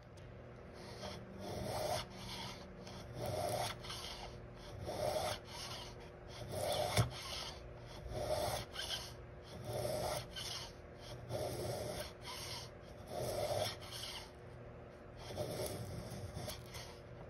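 Veritas miniature shooting plane riding its shooting board's track and shaving basswood: about ten rasping strokes, one every second and a half or so, with a single sharp knock about halfway through.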